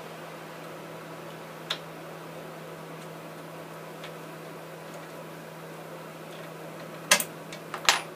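Small metal clicks and taps from a scroll-saw blade adapter being tightened with an Allen key: one light click, then two sharper ones near the end. A steady low hum sits underneath.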